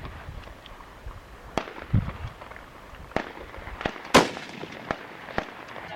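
Rifle gunfire: a string of sharp cracks of varying loudness, the loudest a little past four seconds in, from a .243 Ruger American Predator bolt-action rifle fitted with a muzzle brake.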